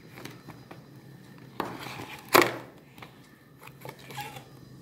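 A GoPro Hero 8 retail box and its plastic case being worked at by hand: the tight inner tray is being forced out, giving soft rubbing and small clicks. One sharper knock comes about two and a half seconds in.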